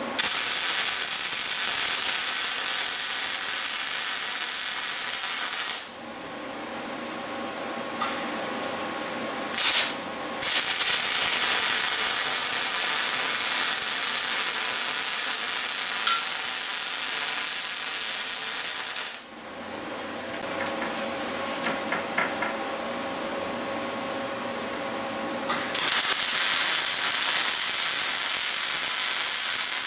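Wire-feed (MIG) welding arc crackling steadily as beads are run along steel leaf-spring perch pads. It comes in three long runs with pauses between them, and a short burst just before the second run.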